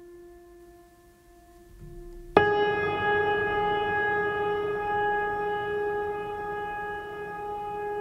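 Ambient music: a soft, steady held tone, then about two and a half seconds in a much louder, brighter note comes in sharply and is held, slowly fading.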